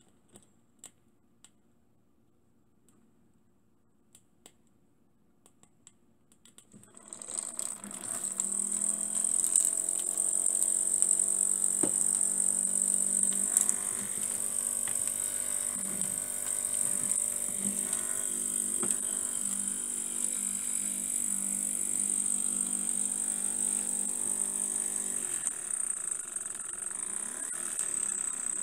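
Steady hiss of steam with a low hum underneath from a small brass model steam boiler heated by an alcohol burner and coming up to steam. It fades in about seven seconds in, after a few faint clicks.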